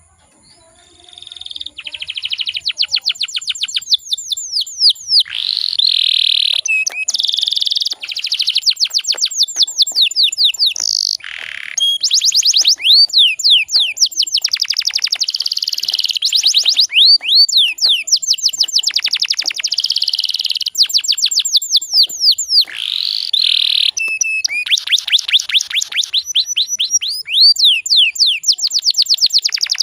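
Domestic canary singing a long song of fast trills and rolls: phrases of rapidly repeated high notes and short sweeps, each phrase changing to a new note every second or two. The song starts about a second in.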